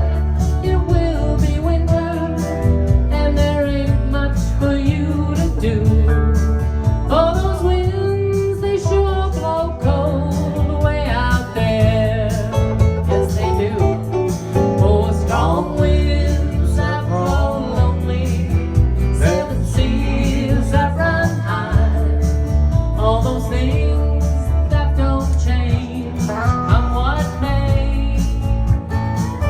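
A country-folk song sung with guitar accompaniment and a steady bass line.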